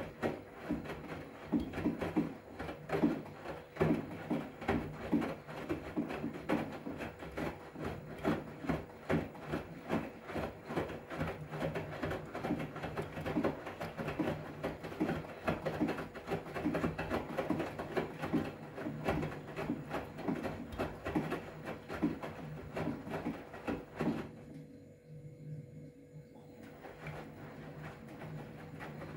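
Front-loading washing machine in its wash cycle: wet towels tumbling and sloshing in the drum with repeated soft thuds over a steady motor hum. The drum stops for a couple of seconds near the end, then starts turning again.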